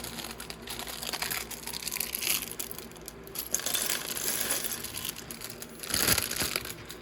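Small plastic LEGO pieces clicking and rattling as they are handled and sorted, with crinkling of plastic parts bags and a louder clatter of pieces about six seconds in.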